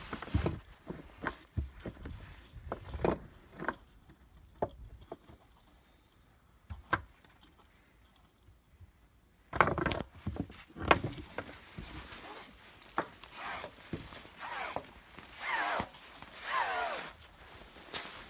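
Handling noises of a fishing magnet's rope being worked and hauled up a concrete well: scattered clicks and knocks, a quiet stretch in the middle, then denser rubbing and knocking with a couple of falling scraping squeals near the end as the magnet comes up.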